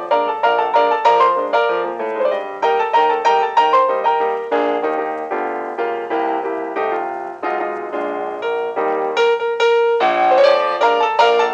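Background piano music: a busy passage of quick, repeated notes with no pause.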